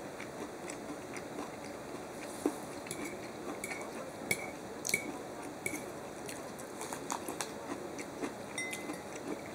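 Metal fork clinking and scraping on a ceramic plate while cutting and picking up food, a scatter of light clicks, several with a short ring.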